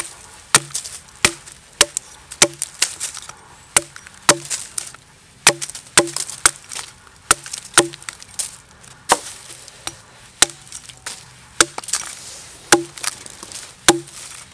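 Small hatchet chopping at the end of a freshly cut stick braced on a log, shaping a point: a run of about twenty sharp wooden knocks, mostly under a second apart, with a couple of brief pauses.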